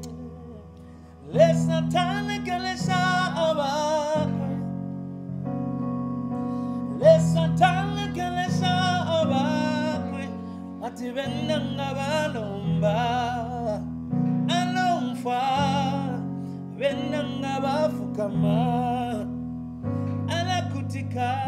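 A man sings with vibrato over held chords on a Yamaha Motif XF6 synthesizer keyboard. The chords change every second or so. About four seconds in the voice drops back briefly while the keyboard carries on.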